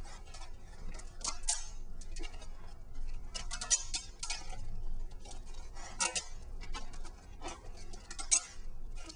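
Adhesive tape being pulled off its roll in short, crackly bursts as it is spiral-wrapped tightly around a foam sword pommel, giving irregular clusters of sharp clicks every second or so.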